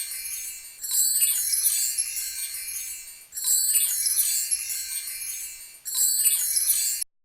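Bright, tinkling chimes in a shimmering phrase that restarts about every two and a half seconds, cutting off suddenly near the end.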